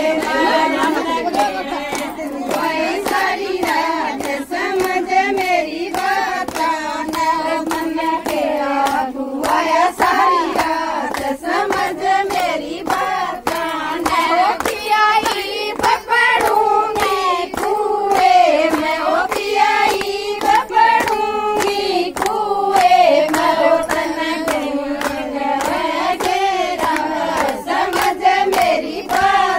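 A group of women singing a Haryanvi folk song together, keeping time with steady, rhythmic hand clapping.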